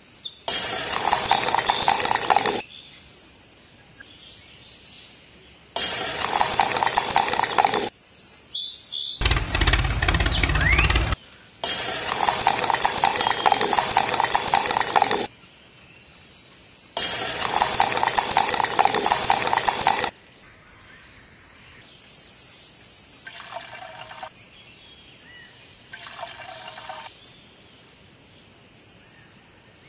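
The small electric motor of a miniature concrete mixer runs in five loud spells of two to three seconds each, starting and stopping abruptly. It turns a steel drum of wet concrete, and the concrete sloshes inside. Two shorter, softer spells follow near the end.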